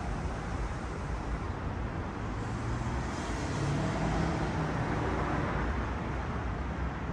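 Steady distant road traffic, with one vehicle's engine passing a little louder in the middle.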